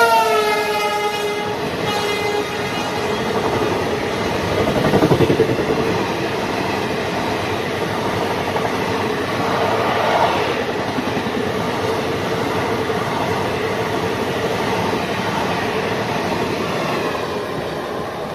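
An Indian Railways express train passing at full speed. Its locomotive horn sounds at the start and drops in pitch as it goes by. The coaches then rush past with steady wheel-on-rail noise that fades near the end.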